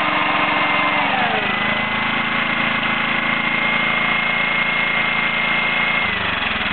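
Rockworth petrol generator's engine running; its speed dips about a second in, picks back up, and drops again near the end.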